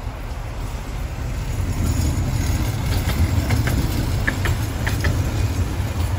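Two-car tram passing on its rails, a low rumble that grows louder about two seconds in and holds, with a few short high squeaks in the middle.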